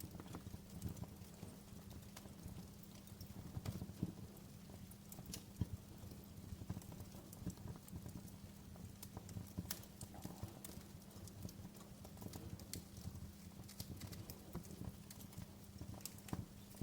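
Wood fire crackling: irregular pops and snaps, a few louder than the rest, over a low steady rumble.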